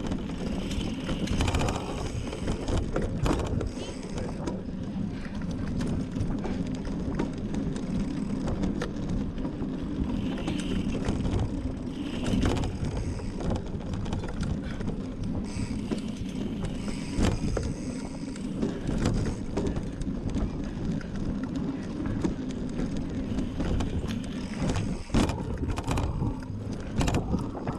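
Mountain bike ridden hard over rough off-road ground: a steady tyre and drivetrain rumble with frequent rattles and knocks from the bike, and some wind on the microphone.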